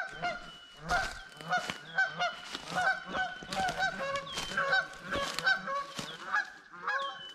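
A flock of waterfowl calling over and over, overlapping goose-like honks several times a second.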